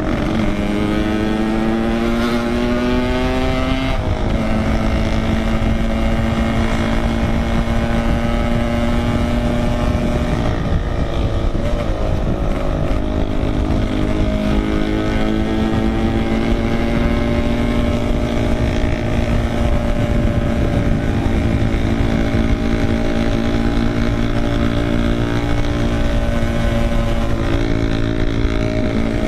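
Yamaha RX-King two-stroke motorcycle with a packing power exhaust, riding under way. The engine pitch climbs, drops at about four seconds and again at about eleven seconds as gears are changed, then holds steady at cruising speed, with road and wind rush underneath.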